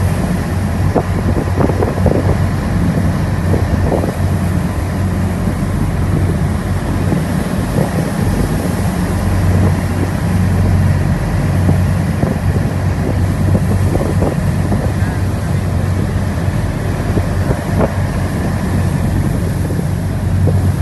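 A lifeboat's engines running steadily under way in heavy seas, with wind buffeting the microphone and occasional slaps of waves and spray.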